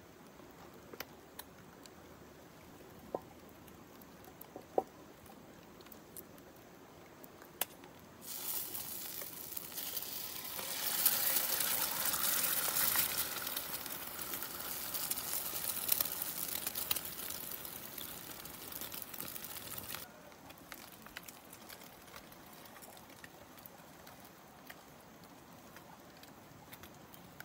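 Food sizzling in hot oil over a campfire: a loud hiss that starts suddenly about eight seconds in, swells a few seconds later, then cuts off abruptly about twenty seconds in. Before and after, only a low hiss with scattered small clicks and taps.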